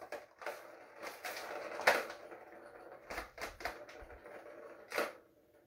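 Plastic ball rolling and rattling around a Turbo Track cat toy's circular plastic track as a kitten bats at it, with a sharp clack about two seconds in and several more knocks from about three to five seconds.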